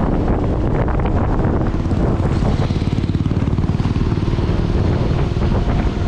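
Small motorbike engine running steadily at riding speed, a fast even drone, with wind rushing over the microphone.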